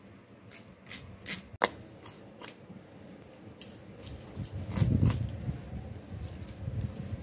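Wet scraping and squishing as a knife scrapes the raw flesh of a small mackerel off its backbone. There is a sharp click about a second and a half in, and a duller low bump near five seconds in.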